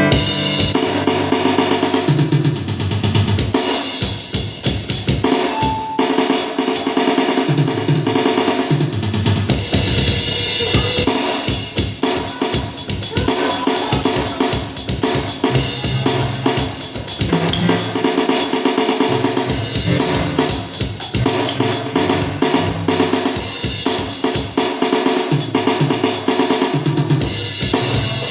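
Acoustic drum kit played continuously in a groove, with bass drum, snare hits and ringing cymbals, in quick dense strokes.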